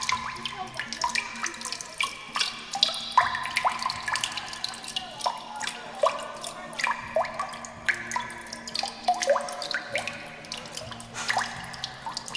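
A quick, irregular run of short plinking notes at many different pitches, like water drops, over a low steady hum.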